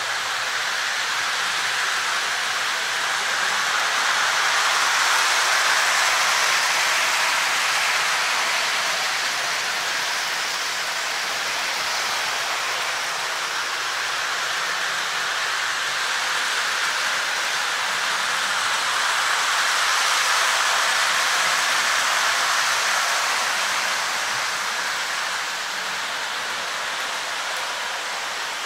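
Model trains running on three-rail O-gauge track: a steady rolling hiss of wheels on the rails that grows louder and fades twice as a train comes round the loop.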